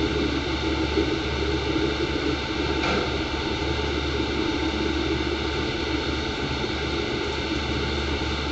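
Steady whirring noise with a low hum, unchanging throughout, like a motor or fan running close by.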